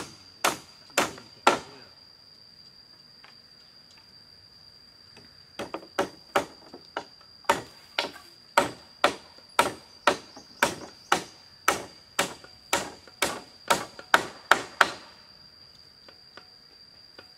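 Hammer blows nailing wooden rungs onto bamboo poles, sharp knocks about two a second: a few strokes that stop shortly after the start, then after a pause a long steady run that ends a couple of seconds before the close. A steady high insect drone runs underneath.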